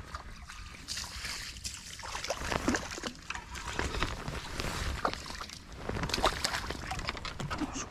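River water sloshing and trickling at the bank, with many small crackles and clicks throughout.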